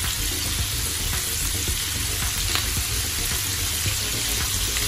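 Pork belly cubes frying in hot oil in a pot with onions and garlic: a steady sizzling hiss with scattered small crackles.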